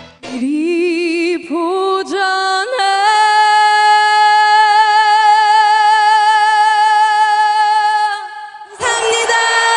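A woman singing solo with no accompaniment. She sings a few short notes that climb in pitch, then holds one long high note with even vibrato for about five seconds. Near the end another song starts with a voice gliding upward.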